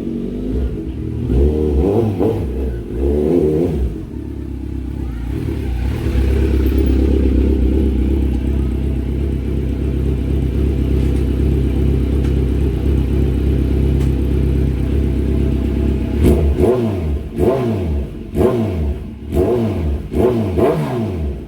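Kawasaki Z900 SE inline-four running through an aftermarket slip-on exhaust: a few throttle blips, then held steady for about ten seconds, then a quick series of sharp revs that rise and fall near the end.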